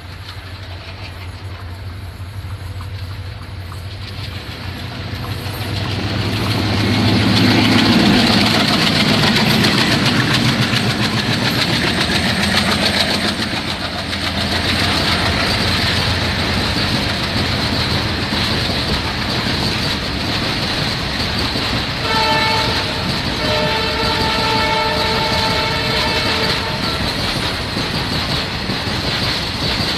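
Freight train passing: a diesel locomotive's engine drone builds and is loudest as it passes, about eight seconds in. Then a long rake of covered hopper wagons rolls by with a steady rumble and wheel clatter. A train horn sounds for about five seconds, starting about two-thirds of the way through.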